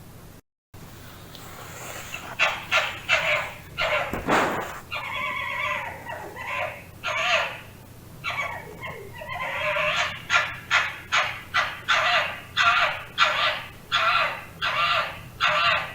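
Fox calling: a series of short yelps with a few longer, drawn-out cries among them. Near the end the calls come steadily, about two a second.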